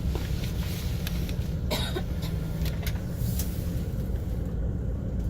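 Steady low rumble of a tour bus's engine and road noise heard from inside the cabin, with a short cough about two seconds in.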